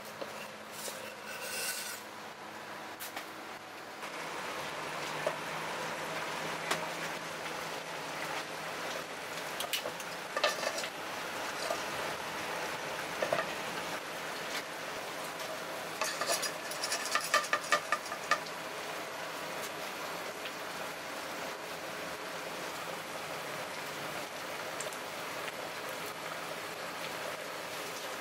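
Cooking sounds: a knife cutting garlic cloves on a wooden board in the first few seconds, then a steady hiss from oil heating in a frying pan over a gas burner, broken by scattered clicks and a quick run of ticks and clatter about two-thirds of the way in. Near the end, chopped garlic sizzles in the hot oil.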